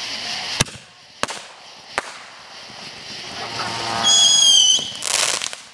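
Fireworks going off: three sharp distant bangs in the first two seconds. About four seconds in comes a high, steady whistle lasting under a second, then a brief burst of hiss.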